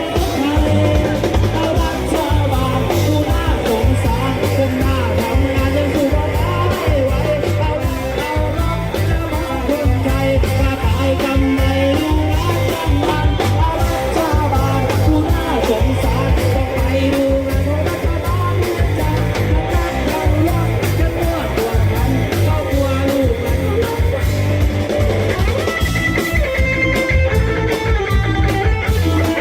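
Live music from a Thai rot hae parade-truck band over its truck sound system: a singer over electric guitar and drum kit, with a heavy, steady bass beat.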